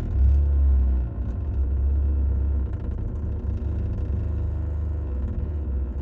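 A deep, steady rumble, loudest for about the first second and then settling.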